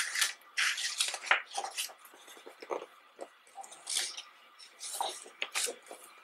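Pages of a bound photobook being turned by hand: paper swishes and rustles, with a cluster of turns in the first second or so and more about four and five seconds in.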